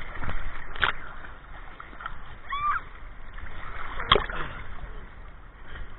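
Shallow sea water sloshing and splashing right at a camera held at the water's surface, with two sharper splashes, about a second in and about four seconds in.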